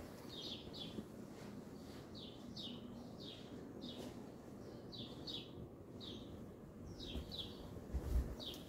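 A songbird calling over and over: short, high notes that slur downward, many of them in quick pairs, about one to two a second.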